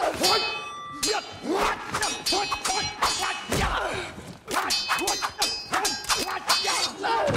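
Sword blades clashing in a film fight, a quick run of metallic clangs that ring on after the strike, mixed with heavy thuds and swishes.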